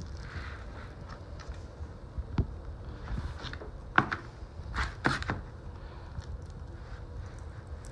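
Hands picking at the cellophane shrink-wrap on a sealed vinyl record over a cardboard mailer: faint rustling with a few sharp clicks and crinkles, the loudest about four seconds in and a short cluster around five seconds in.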